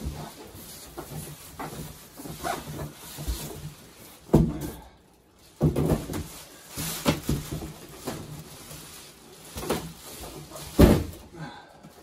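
A large clear plastic bag crinkling and rustling as a heavy cardboard box is pulled out of it, with a few dull thumps of the box being handled. The loudest thump comes about a second before the end, as the box is laid down on the table.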